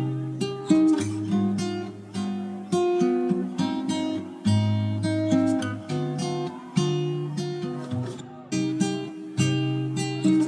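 Background music: strummed acoustic guitar, chords struck about once a second and left to ring.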